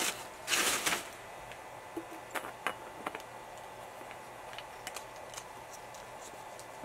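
Tissue paper rustling briefly about half a second in, then a scatter of faint small clicks and taps from objects being handled.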